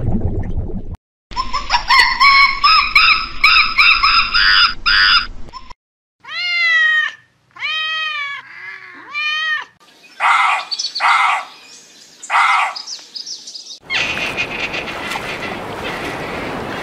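A run of different animal calls, cut one after another. First comes a rapid, high, pitched chattering. Then four separate calls, each rising and falling in an arch. Then a few harsher, noisier calls, and finally a steady noise.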